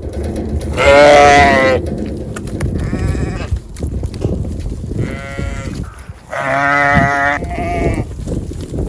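Sheep bleating: about five wavering calls, the loudest about a second in and near seven seconds in, with fainter ones between and one close behind the last loud call.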